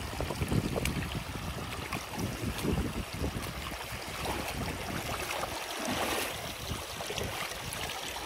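Hiking boots wading through a shallow rocky stream, splashing and knocking on stones with each step over the rush of the flowing water. Wind buffets the microphone, adding a low rumble.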